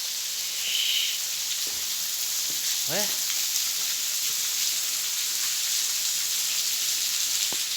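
Waterfall spray falling like rain inside a cave, a steady hiss of many drops hitting rock and water.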